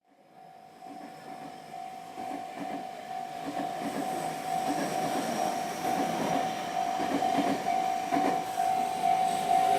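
Japanese railway level-crossing warning bell ringing as one steady, slightly pulsing tone, while an electric Tobu 50000 series train approaches and its running noise grows steadily louder.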